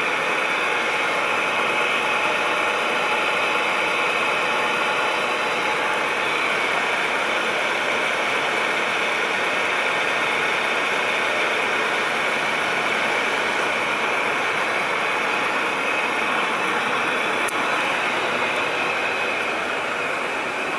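Rear-loader garbage truck's engine running steadily at idle, an even, unbroken noise with no change in pitch or level.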